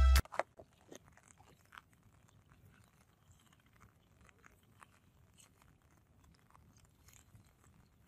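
Music cuts off just after the start. Then comes the faint crackling and rustling of a nylon gill net being hauled in by hand over the side of a wooden boat, with scattered small clicks.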